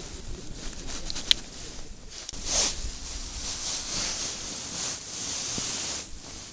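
Steady hiss with close rustling and handling noise from jacket sleeves and hands, and a sharp click about a second in.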